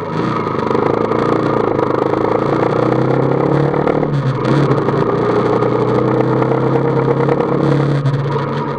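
Motorcycle engine accelerating as the bike pulls away out of a turn, growing louder at the start. It drops briefly about four seconds in, picks up again, and eases off near the end.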